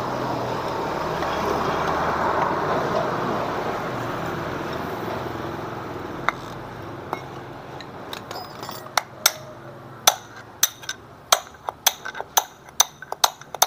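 Hammer blows ringing on metal, sparse at first and then coming quickly near the end, as a worn bearing is knocked out of a Honda Vario's final-drive (gardan) case; that bearing is the source of the scooter's growling noise. Before the blows, a rushing noise swells and fades.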